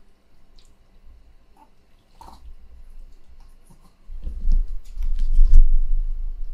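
Faint small clicks and rustles, then from about four seconds in a loud, deep rumbling and bumping of something rubbing against the microphone.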